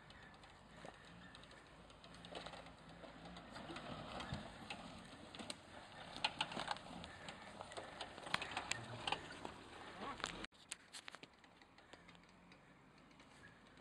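Suzuki Vitara's engine running faintly at low revs as it crawls up a rutted woodland track, with many sharp clicks and crackles through the middle stretch. The level drops suddenly about ten and a half seconds in.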